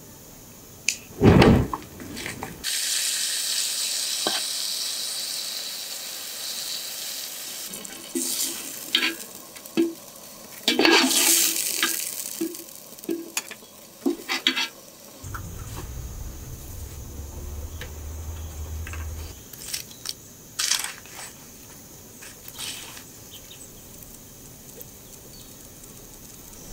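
Cooking sounds in quick succession: a steady hiss for a few seconds, then a metal spoon clinking and scraping against an aluminium pot in a run of short strokes, with scattered knocks.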